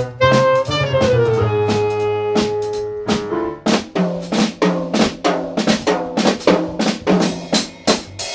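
Live jazz combo playing: held melody notes over bass in the first few seconds, then from about four seconds in the drum kit comes to the fore with rapid snare and cymbal strokes over a repeating bass note.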